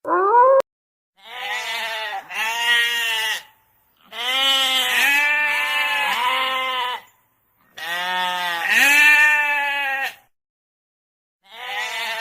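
Livestock bleating: a short rising call that cuts off abruptly, then a series of long, quavering bleats, each lasting about two to three seconds, with short pauses between them.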